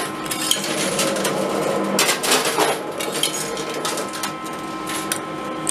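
Metal coins clinking and clattering in a coin pusher arcade machine as they are dropped in and land on the pusher shelf. Repeated sharp clinks over a steady hum from the machine.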